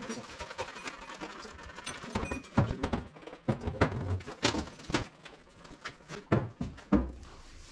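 Irregular knocks and thunks as the truck's bonnet panel is lifted off its frame and handled.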